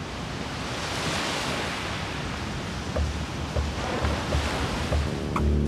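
Ocean surf washing and breaking, with wind on the microphone. About three seconds in, a low, regular thumping beat joins in.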